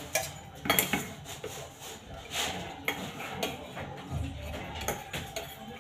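Utensils clinking and scraping on pots and plates as rice is served out, with a series of short, sharp knocks.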